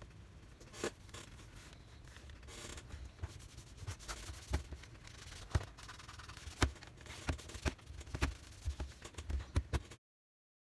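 Hands working on a laptop with small tools: scattered sharp clicks, taps and scrapes of plastic and metal parts, growing busier about four seconds in. The sound cuts off abruptly near the end.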